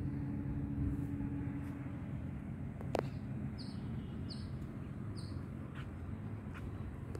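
A small bird gives three short, high chirps a little under a second apart, over a steady low rumble, with one sharp click just before the first chirp.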